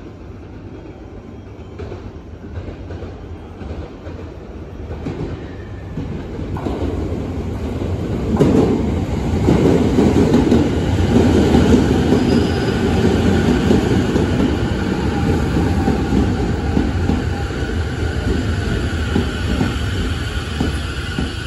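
Sotetsu 10000 series electric train with a Mitsubishi IGBT VVVF inverter running into the station, its wheel-and-rail rumble growing louder over about eight seconds as it nears, then running past with steady electrical whining tones over the rumble.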